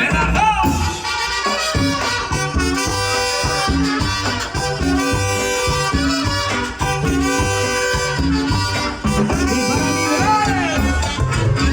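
Live tropical dance orchestra playing an instrumental passage: a brass section holding and stepping through chords over a steady bass and percussion beat.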